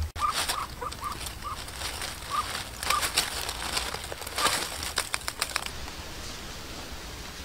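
A duck giving short, high calls, about eight in the first three seconds, while dry leaf litter crackles and rustles under it as it moves off the nest. The crackling is densest from about three to five and a half seconds in.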